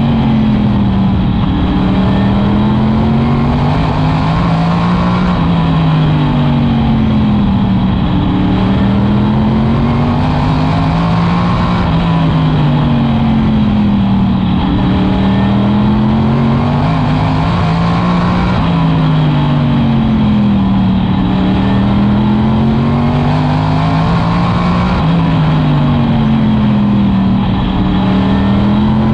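Modified race car's V8 engine at racing speed, winding up and backing off in a repeating cycle about every six seconds as it works around the short oval.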